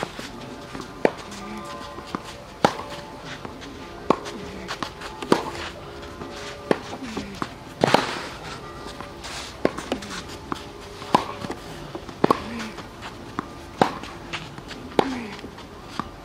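Tennis ball struck back and forth by rackets in a baseline rally, a sharp pock about every second and a half.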